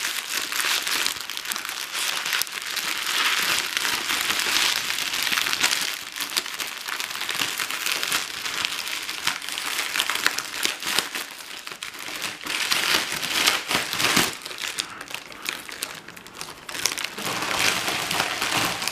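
Shiny foil wrapping crinkling and rustling as it is pulled off a Kinder Gransorpresa chocolate Easter egg, a dense run of crackles that eases briefly about three-quarters of the way through.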